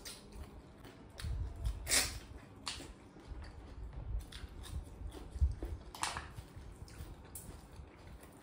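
Close-up eating sounds of a mukbang: chewing and mouth noises as snails and curry are eaten by hand, with a few louder sharp sounds about two and six seconds in.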